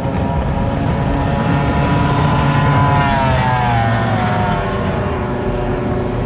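A high-performance speedboat making a fast pass, its engine note rising and then dropping in pitch as it goes by about three seconds in. A low steady engine rumble runs underneath.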